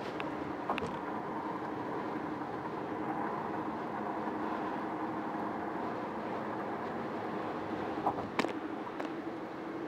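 Steady road and engine noise of a car cruising at highway speed, heard from inside the cabin: an even hum with a few short knocks, the loudest near the end.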